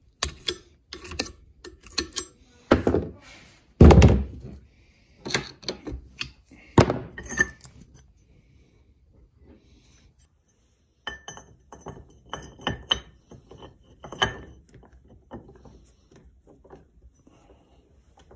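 Thunks and metallic clinks of a screwdriver prying and knocking old handle wood out of the eye of a steel axe head held in a bench vise. The loudest knock comes about four seconds in. After a pause of a few seconds come lighter clinks of the loose axe head being handled against the vise.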